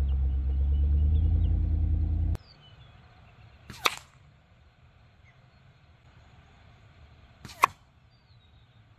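Steady low engine rumble that cuts off abruptly, then two sharp cracks about four seconds apart from a .177 Gamo Gen3i Magnum air rifle shooting at a ballistic-gel target.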